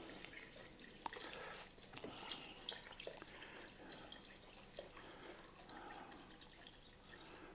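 Water being poured into a bowl of chopped okroshka ingredients and sour cream: a faint trickle with small splashes and drips.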